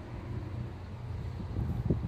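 Wind buffeting the microphone as a steady low rumble, with a short louder bump near the end.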